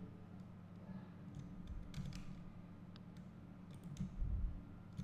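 A few scattered clicks from a computer keyboard and mouse over a steady low hum, with a dull low thump about four seconds in.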